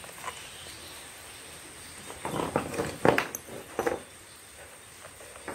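Knocks and clatter of metal hand tools and pump parts being handled on a wooden floor: a cluster of sharp knocks about two seconds in, the loudest about three seconds in, and a last knock near four seconds.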